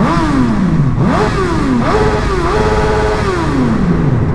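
Suzuki GSX-R 1000 K7 inline-four motorcycle engine revving: the pitch jumps up and sinks back three times in quick succession, then holds briefly and falls away slowly.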